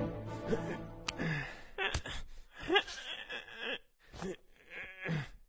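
Cartoon character's wordless vocal effects: short grunts and groans that slide up and down in pitch, broken by a few sharp clicks. Music fades out right at the start.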